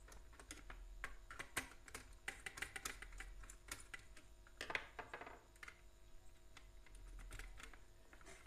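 Screwdriver turning a brass terminal screw on a plastic switch board: a run of faint, irregular clicks and scrapes of metal on plastic, with the board and wires being handled.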